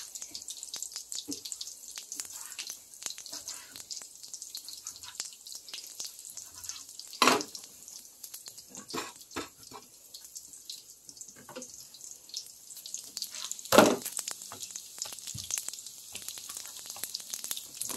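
Köfte meatballs sizzling on an electric contact grill's ribbed plate: a steady high hiss with scattered crackles and pops. Two sharp knocks, about seven and fourteen seconds in, are the loudest sounds.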